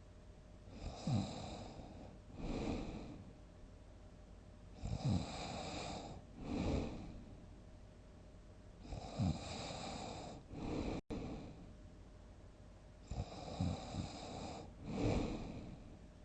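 A person snoring loudly in deep sleep, four breaths about four seconds apart. Each breath comes in two parts: a snore whose pitch drops sharply, then a second rasping sound about a second and a half later.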